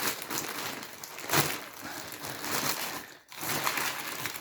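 Plastic packaging crinkling and rustling as it is handled, with a sharper crackle about a second and a half in.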